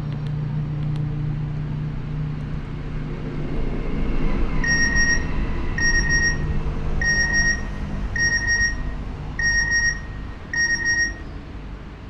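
Strawberry ST77 phone playing a ringtone through its loudspeaker: a low drone, then six evenly spaced high beeps a little over a second apart.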